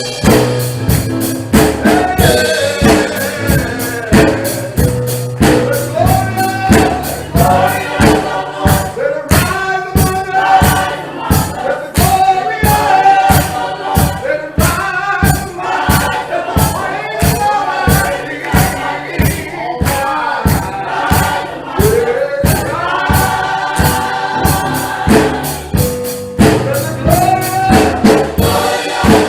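Gospel choir singing over a steady beat, with a tambourine-like percussion.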